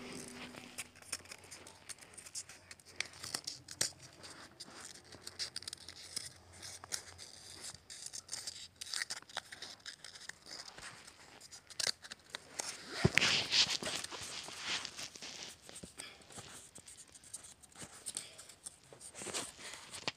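Paper being handled and folded by hand: scattered rustles, crinkles and small clicks, with a louder burst of rustling about thirteen seconds in.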